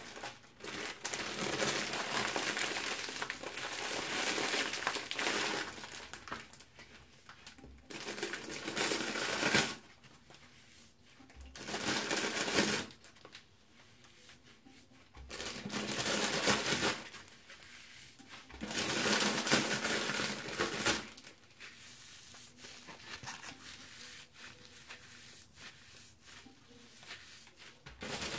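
Wet, soapy foam scrub sponge with a scouring pad being squeezed by hand in a basin of water: crackling, squelching bursts of foam and sudsy water, about five squeezes lasting a second to several seconds each. Softer, uneven wet handling noise fills the gaps and the last several seconds.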